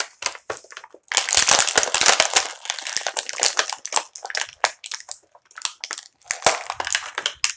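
Clear plastic blister packaging crinkling and crackling as a Bakugan toy is worked free of it. The crackle is densest from about a second in until about three seconds, then breaks into scattered clicks and crackles.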